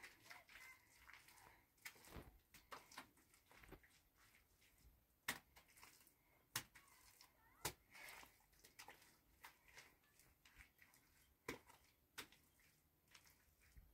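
Near silence: room tone, with a few faint, sharp clicks and knocks scattered through.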